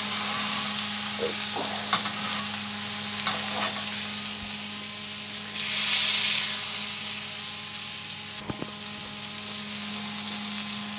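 Smashburger patties with sliced red onions sizzling on a hot barbecue griddle plate as they are pressed flat with a wide metal spatula. The sizzle swells about six seconds in, and the spatula clicks on the plate a few times.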